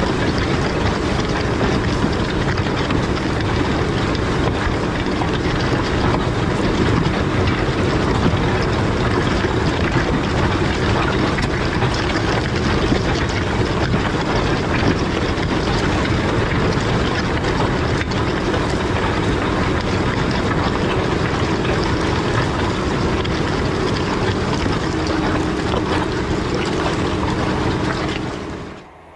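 Large farm tractor engine running steadily at working speed, with a noisy mechanical rush over it; it fades out quickly just before the end.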